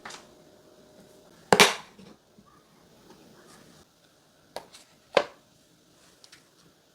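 A few sharp clacks and knocks, the loudest about a second and a half in and two more close together around five seconds in: glass food-storage containers and their lever lids being handled and set down.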